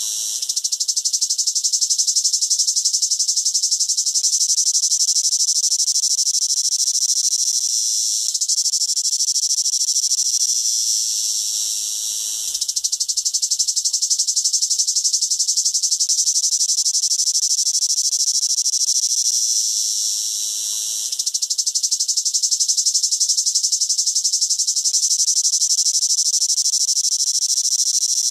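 A cicada singing: a loud, continuous high-pitched buzz made of very rapid pulses. It eases off briefly three times, about 8, 12 and 21 seconds in, and comes back up each time.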